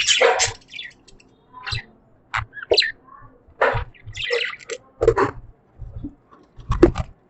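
Budgies chirping and chattering in short, irregular calls with brief pauses between them, some calls joined by dull low knocks.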